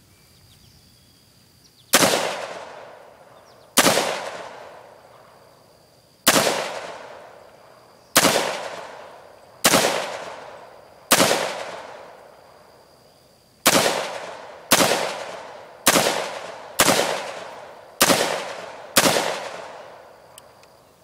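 An AR-15 semi-automatic rifle fired as twelve single shots, each cracking and then echoing away. The shots start about two seconds in at roughly two-second intervals and quicken to about one a second in the second half.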